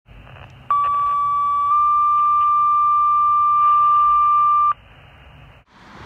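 Two-tone fire dispatch alert over a scanner radio: a steady beep for about a second, then a slightly higher tone held about three seconds, cutting off sharply. It has the thin sound of radio, with faint radio noise around it.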